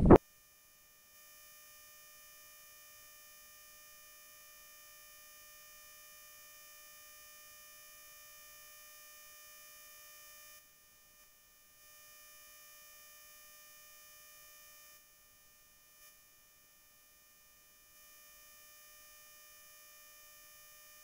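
Near silence after a louder sound cuts off abruptly at the very start: only a faint, steady, high-pitched electronic whine made of several pure tones, which drops out twice.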